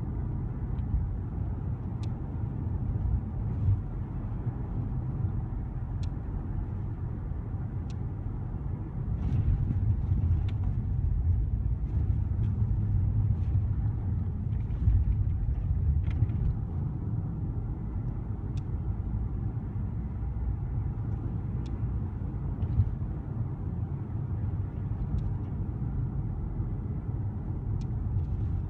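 A car driving steadily along a road: a low, steady engine and road rumble, with a few light ticks now and then.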